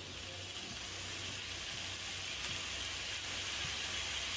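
Biryani masala sizzling in oil in a cooking pot: a steady frying hiss that grows slightly louder.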